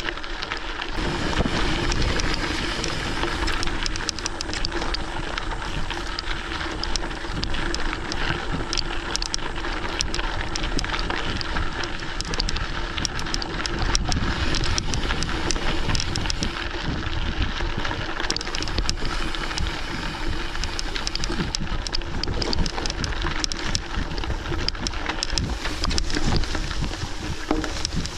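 Rain pattering on the microphone in many light drop ticks, with wind noise over it and a steady low hum underneath.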